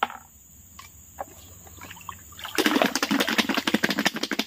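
A few light water splashes, then, about two and a half seconds in, a fast clatter of snail shells knocking together, about ten knocks a second, as the freshly gathered river snails are worked and washed.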